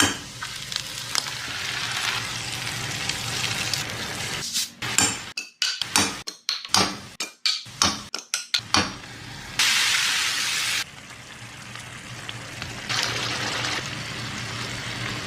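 Chicken frying and sizzling in a pan. In the middle comes a run of sharp clinks and knocks of a utensil against the pan, then the sizzle rises in two louder spells near the end.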